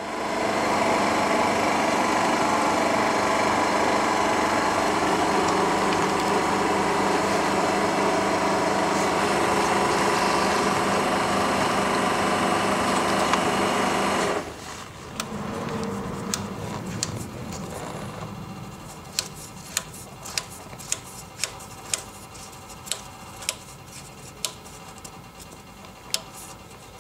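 Yamaha Gear scooter's small single-cylinder engine running steadily, then shut off about halfway through. Near the end comes a string of sharp clicks, roughly two a second, from a hand tool working at the engine's underside.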